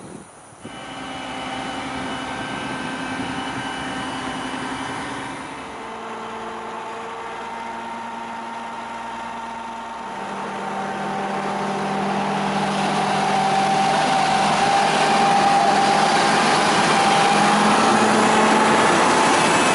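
A motor running steadily, coming in sharply about a second in; its pitch shifts twice and it grows louder over the second half.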